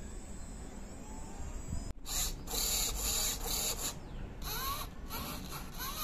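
Small electric gear motors of a radio-controlled model whirring in a string of short bursts that start and stop, as the transmitter's controls are moved. The first couple of seconds hold only a quiet hum.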